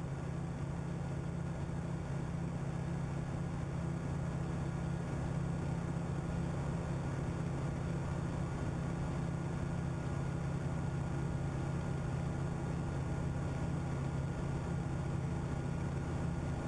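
Steady low engine drone with several fixed hum tones, unchanging throughout.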